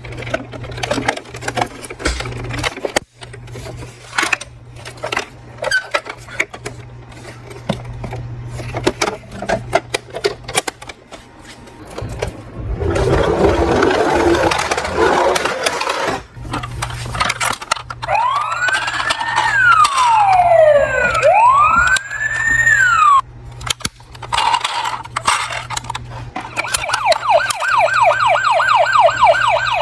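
Toy emergency vehicles being handled, with many short plastic clicks and a few seconds of rattling noise, then an electronic toy siren: a wail that rises and falls twice, and near the end a fast repeating yelp.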